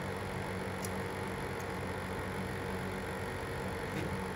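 Steady low hum and hiss of background noise, with a few faint ticks.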